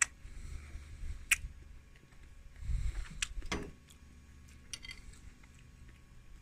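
A metal spoon clinking and scraping in a small ceramic bowl while scooping: a few sharp separate clicks spread over several seconds, with a brief low rumble about three seconds in.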